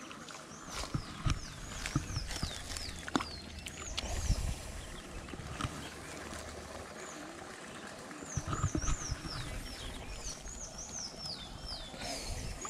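A bird singing a run of repeated slurred whistled notes, in two bouts with a pause of a few seconds between them. Under it come a few low thumps and rustles close by.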